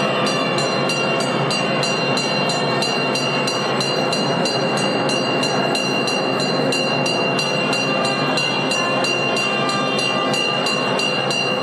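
Temple festival din: a dense, steady wash of noise with an even, rapid metallic clatter of about four to five strokes a second and a steady high ringing tone over it.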